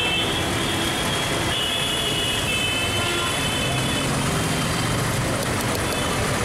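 Steady street traffic noise, with high vehicle horn tones sounding during the first half.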